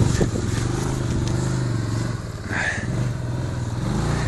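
CF Moto 500 4x4 quad's single-cylinder four-stroke engine running steadily, with a short higher-pitched sound about two and a half seconds in.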